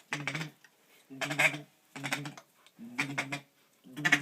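Mallard feeding call imitated by a duck caller: a string of short chattering bursts, about one a second, each a quick rattle of pulses.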